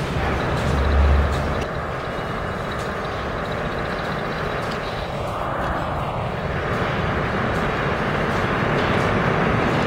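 NYC Subway 1 train approaching through the tunnel into a station: a continuous rumble and rush of wheels on rails that grows slightly louder as it nears, with a strong low rumble about a second in.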